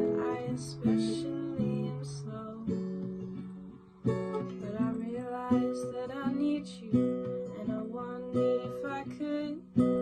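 Acoustic guitar music, strummed chords with a steady rhythm.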